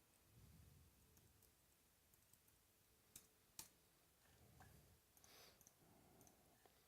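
Near silence with a few faint clicks, the two sharpest a little over three seconds in.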